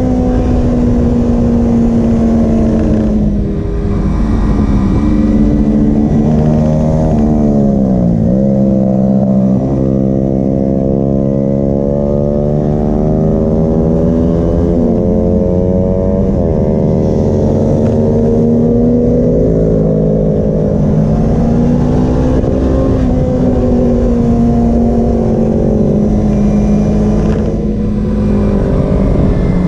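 Kawasaki Ninja 250R's parallel-twin engine heard from the rider's seat under riding load. Its pitch drops twice in the first eight seconds as the bike slows and changes down, then climbs as it accelerates, and keeps rising and falling with throttle and gear changes.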